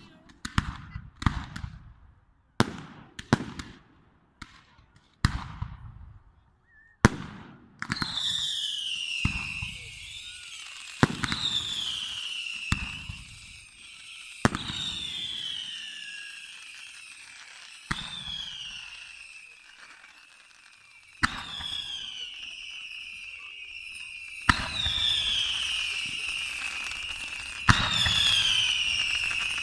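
Fireworks display: a quick run of sharp shell bangs for the first several seconds, then from about eight seconds in, shrill whistles gliding down in pitch again and again, with a single loud bang every two or three seconds.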